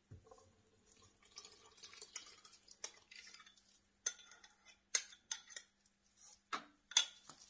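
Scattered light clinks and taps of a kitchen utensil or container against a stand mixer's metal bowl, with several sharper ones in the second half, while the mixer is switched off. A faint steady hum runs underneath.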